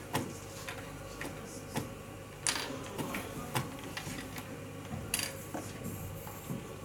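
Scattered sharp clicks and taps of draughts pieces being set down on boards and game-clock buttons being pressed, at irregular intervals, with two brief scraping sounds about two and a half and five seconds in, over a low room hum.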